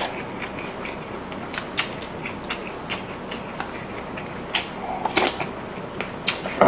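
Close-miked eating sounds: many small wet mouth clicks and smacks while chewing, with a louder slurp from a small cup about five seconds in.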